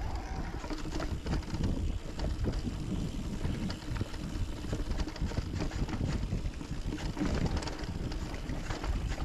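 Mountain bike rolling over rough trail: a steady rush of wind on the microphone, with a constant stream of knocks and rattles from the tyres and bike.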